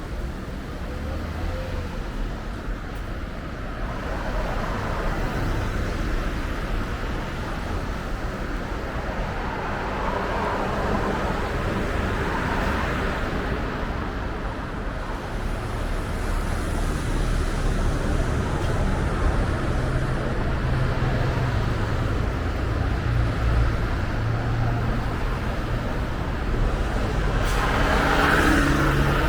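City road traffic: car engines and tyres running past, slowly growing louder, with a short, brighter tonal sound near the end.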